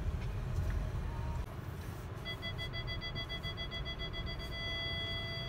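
Car's parking-sensor warning beeping rapidly about two seconds in, then merging into one continuous high tone as the front of the car gets very close to an obstacle. Low engine and tyre rumble drops away early on as the car slows to a stop.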